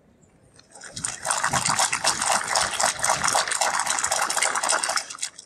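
Crowd applauding. It swells up over about a second, holds steady, and cuts off suddenly near the end.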